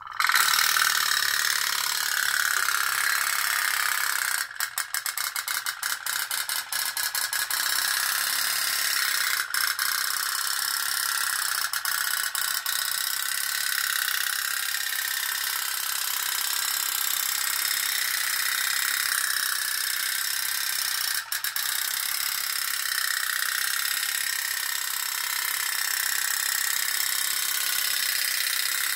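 Homemade pop-pop boat's candle-heated foil boiler steaming and sputtering as it drives the boat along, a steady high, noisy sound that starts suddenly. It breaks off for a split second several times, in a cluster about five seconds in and once near twenty seconds in.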